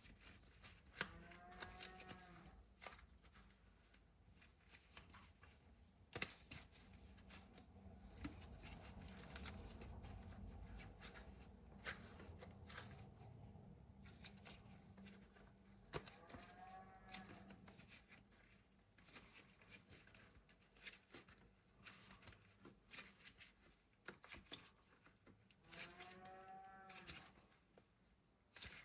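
Quiet handling of air-dry clay and its packaging: scattered soft taps and rustles. Three short pitched calls rise and fall in pitch, one about two seconds in, one about sixteen seconds in and one near the end.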